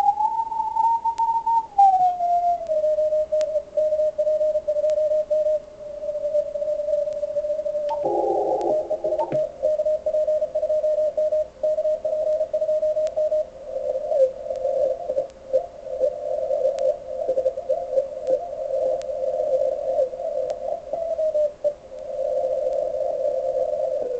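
Morse code (CW) signals received on an Icom IC-7600 HF transceiver and played through a speaker: a single beeping tone of about 600 Hz, keyed on and off, heard through a narrow CW filter. The pitch glides up and back down in the first two seconds, there is a brief burst of wider noise about eight seconds in, and from about fourteen seconds the keying becomes busier and more broken.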